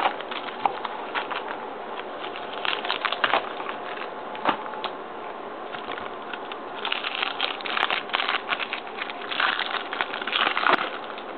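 Hockey trading card packs being handled: wrappers crinkling and cards flicked and slid against each other in quick, irregular runs of clicks and rustles, busiest in the second half.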